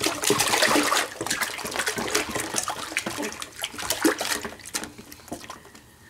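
Bathwater splashing and sloshing in a stainless steel kitchen sink as a baby slaps and paddles at it with his hands: many quick splashes, busiest in the first couple of seconds and dying down near the end.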